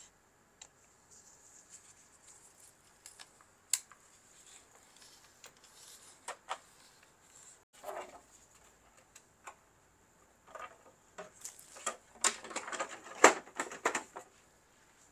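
Plastic upper case of an Epson L805 inkjet printer being handled and fitted back on: scattered light clicks and knocks, then a burst of plastic clatter and clicks near the end as the case is pressed into place.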